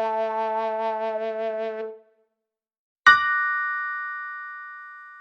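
Background music ending on a held brass-like note with a wavering tremolo, which cuts off about two seconds in. After a second of silence comes a single bell ding that rings and slowly fades.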